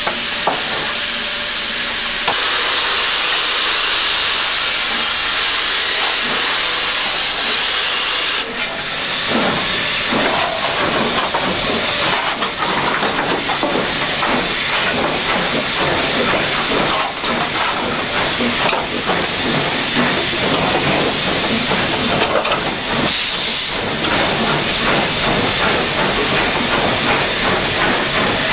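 Cab of BR Standard Class 2 2-6-0 steam locomotive 78022: a loud, steady hiss of steam, joined about nine seconds in by a dense, uneven beating and rattling that runs on to the end.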